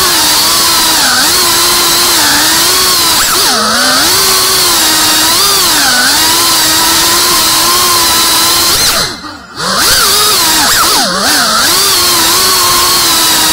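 A GEPRC 3.5-inch FPV quadcopter's brushless motors and propellers whining loudly, the pitch rising and falling as the throttle changes. About nine seconds in the sound drops away for under a second, then picks up again.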